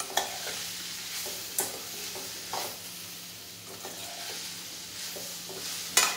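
Chopped long beans and tomatoes sizzling in a steel kadai as a steel spatula stirs them. The spatula scrapes and knocks against the pan a few times, with the loudest knock near the end.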